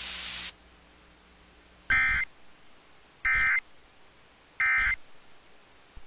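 NOAA Weather Radio SAME end-of-message (NNNN) code: three identical short, high-pitched digital data bursts about 1.3 seconds apart, marking the end of the alert broadcast. A faint radio hiss cuts off about half a second in.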